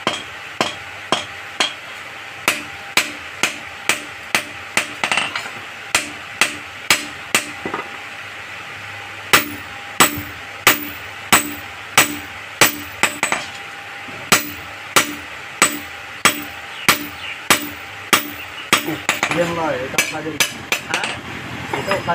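Hand hammer striking a red-hot iron cleaver blade on an anvil in steady blows, about one and a half a second, each with a short metallic ring. The blows pause for about two seconds a third of the way in.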